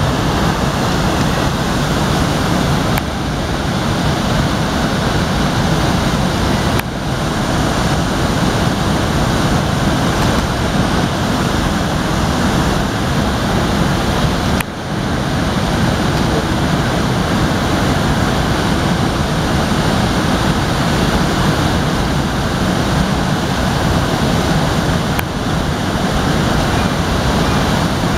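Steady rushing of a fast-flowing river, with a few brief dips in level.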